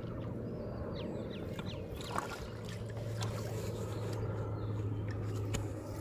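A motor running steadily in the distance, a low even hum that drops slightly in pitch about halfway through, with a few faint bird chirps and small clicks over it.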